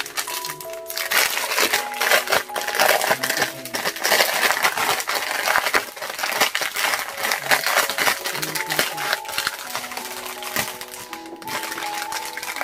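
Sealed plastic bags of diamond-painting drills crinkling and clicking as they are handled, over soft background music.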